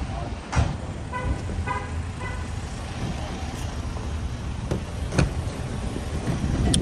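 Road traffic noise, with three short beeps in quick succession about a second in and a few sharp knocks.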